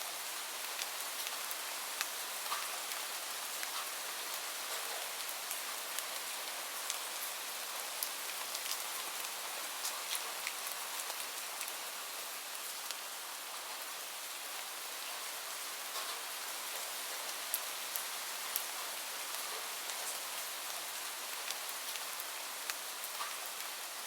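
Steady rain falling, an even hiss with many small scattered drop ticks on a hard surface.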